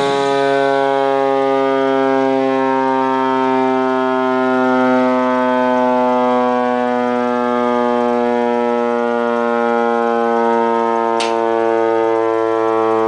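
Federal Q1B mechanical siren winding down: a loud, steady howl that falls slowly in pitch. A single sharp click about eleven seconds in.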